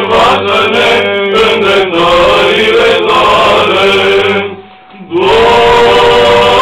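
Male choir singing Orthodox liturgical chant in long, drawn-out notes over a steady low held note. The singing breaks off briefly about four and a half seconds in, then resumes.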